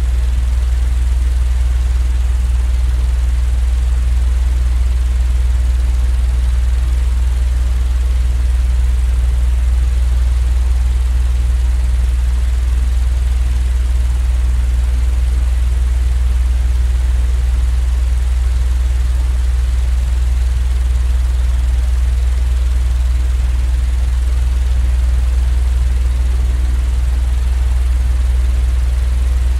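Continuous white-noise sleep sound: a steady low drone with an even hiss above it, unchanging throughout.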